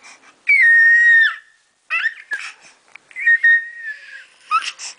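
A baby making a high-pitched squealing 'funny noise': two long, whistle-like squeals each about a second long, with short rising squeaks between them and near the end.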